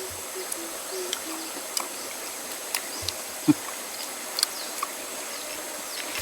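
Outdoor riverside ambience: a steady hiss of flowing water with faint high steady tones, scattered small clicks and ticks, and one sharper click about three and a half seconds in.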